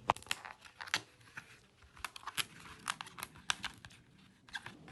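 Flat cardboard display box having its small perforated holes poked out by hand: an irregular run of small cardboard pops, clicks and crinkles, with a quieter spell near the end.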